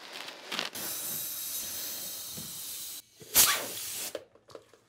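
Air hissing steadily out of a tubeless mountain-bike tire through its valve as the valve core is loosened, cutting off abruptly; then a short loud rush of air and a shorter hiss that fades out.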